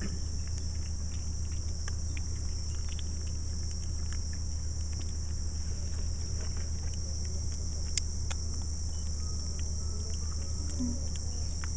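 Steady high-pitched drone of insects, with a low steady hum underneath and a few faint scattered clicks.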